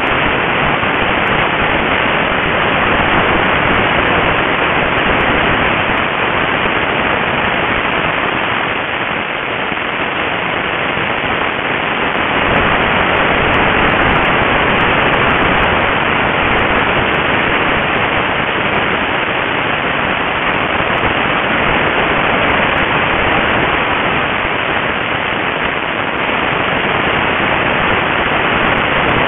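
Steady rushing wind and motor noise picked up by a cheap onboard camera's microphone on a small model aircraft in flight, dull and hissing like static, easing slightly about eight to twelve seconds in.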